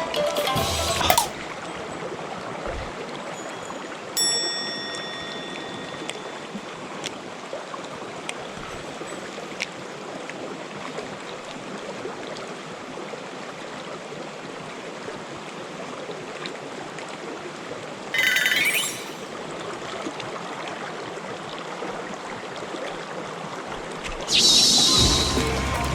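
A mountain stream flowing steadily. About four seconds in there is a short ringing ping that fades, and later a brief rising sweep.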